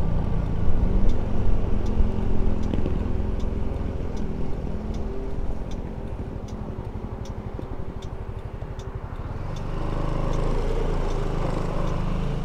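Motorcycle engine running while riding. It eases off about halfway through and picks up again near the end. Faint ticks sound at a regular pace over the engine.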